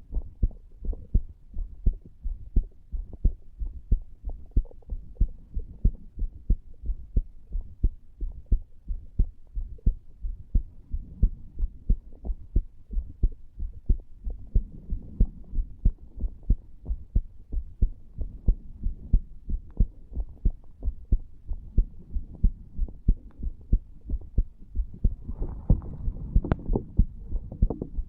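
Human heartbeat recorded close-up from the chest over the tricuspid valve area: a steady, even run of low beats. A brief rustle and one sharp click come near the end.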